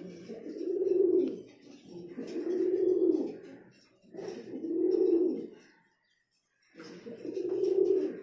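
Domestic pigeons cooing in a loft: four long, low coos, each about a second long, about two seconds apart.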